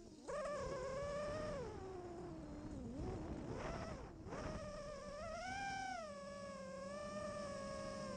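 A 5-inch FPV quadcopter's brushless motors whining, the pitch rising and falling with the throttle. The whine dips at the start and again about four seconds in as the throttle is chopped during manoeuvres, then holds fairly steady.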